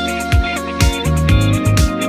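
Intro music with a steady beat: a low drum about twice a second under held melody notes.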